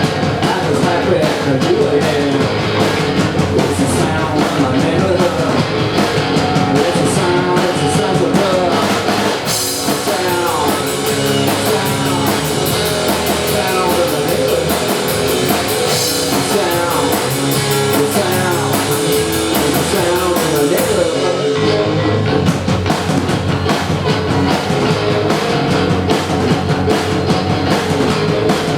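A rock band playing live: drums, electric guitar and vocals in a punk-rock style. About ten seconds in the deepest bass drops away, and it returns with the full band a little past the two-thirds mark.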